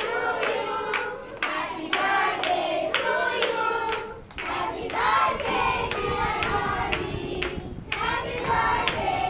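Group of children and adults singing a birthday song together and clapping in time, about two claps a second.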